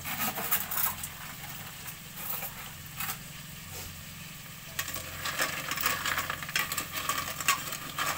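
A metal utensil stirring and scraping in a pot of sautéing food, with sizzling. The clattering strokes come in a few short runs, then thicken into a steady run through the second half.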